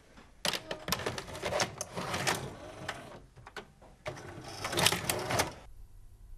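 Video cassette recorder's loading mechanism whirring and clicking as a tape is put in, with a run of mechanical clicks and rattles that is loudest near the end and stops abruptly.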